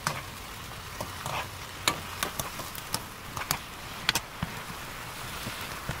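Soy-sauce seasoning sizzling and bubbling in a frying pan of king oyster mushrooms as it reduces over medium heat, with scattered sharp clicks.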